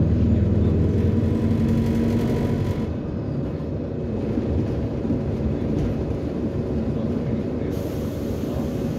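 City bus's Cummins ISBe diesel engine and drivetrain running as the bus drives, heard from inside the passenger cabin with low road and body rumble. A louder, steady engine note drops away about three seconds in.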